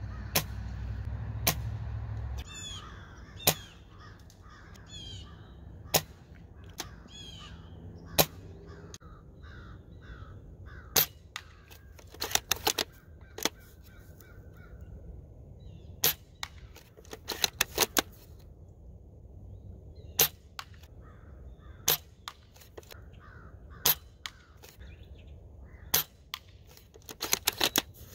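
Spring-powered bolt-action M40A3 airsoft sniper rifle firing repeatedly: a sharp single crack every two to four seconds, with short quick runs of clicks from working the bolt between shots. Birds call in the background for several seconds early on.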